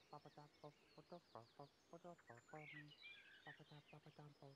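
Faint birdsong: high, quick chirps and twitters over a rapid, irregular string of short low calls.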